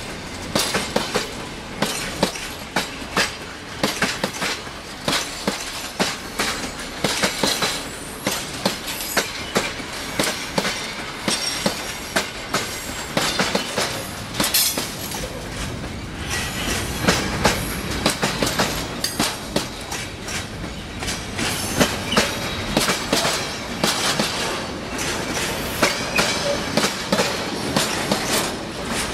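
Freight train wagons rolling past close by, their wheels clacking over the rail joints in a steady run of sharp clicks over the rumble of the train.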